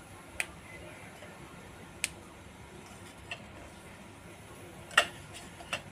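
A handful of light, sharp clicks and taps at irregular intervals as chopped raw mango and green chilli pieces are handled in a small steel container, the loudest about five seconds in.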